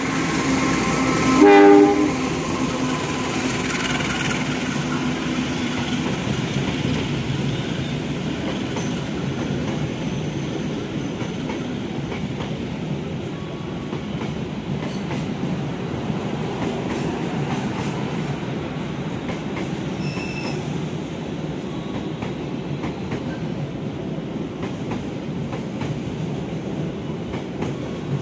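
CC 201 diesel-electric locomotive running through the station at speed, sounding one short horn blast about a second and a half in over its engine. Then the passenger coaches roll past with a steady rumble and clickety-clack of wheels over rail joints.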